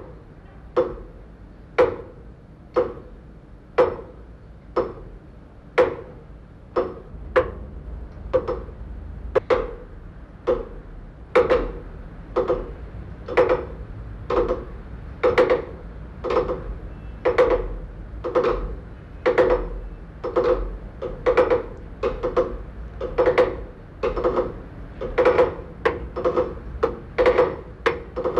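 Tower clock movement ticking steadily about once a second, each tick a sharp metallic click. From about eleven seconds in the ticks grow louder and some come as a quick double click.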